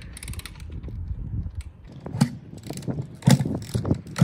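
Honda CRF250X dirt bike being turned over to start but not firing: irregular mechanical clanks and knocks from the starting mechanism, with no engine running, the loudest a little over three seconds in.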